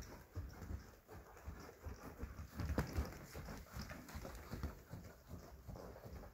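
Quarter horse's hooves thudding on the deep sand footing of an indoor arena as it is ridden, a steady beat of dull, muffled hoofbeats with one louder thud about three seconds in.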